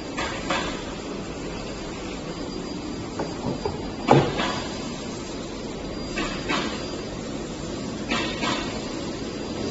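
Steady background noise with a few short knocks and rustles, the loudest about four seconds in.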